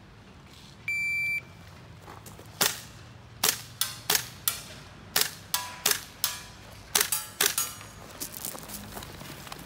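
A shot timer's start beep, then about a dozen sharp single shots from a GHK M4 gas-blowback airsoft rifle (GBL short bolt) over about five seconds. Several shots are followed by a brief metallic ring, as from BBs striking steel targets.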